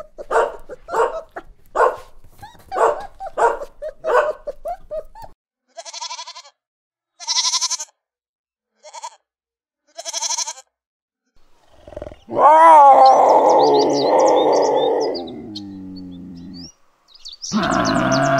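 A string of animal calls: a small dog barking about eight times in quick succession, then five short, quavering goat bleats, then a long, loud bellow about twelve seconds in that falls in pitch and trails off, and another loud bellow near the end.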